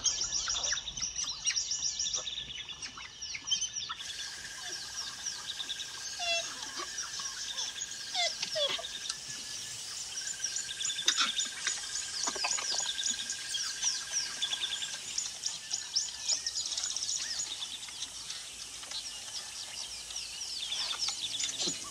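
Many birds calling together: a dense chorus of rapid, high chirps, with a few lower sliding calls and a steady high tone running through the middle.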